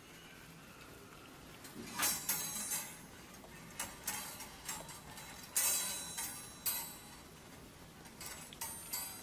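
Metal wire clothes hangers clinking and rattling against each other and the wardrobe rail as a baby monkey climbs among them: sharp irregular clinks in small clusters, starting about two seconds in.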